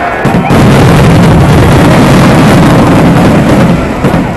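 Aerial fireworks shells bursting in rapid succession, merging into one continuous loud rumble that overloads the microphone. It eases off about four seconds in.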